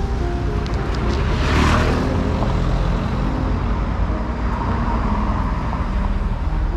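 Road traffic with a steady low rumble; a car passes by close about a second and a half in, and another vehicle passes more softly near the end. Faint background music sits underneath.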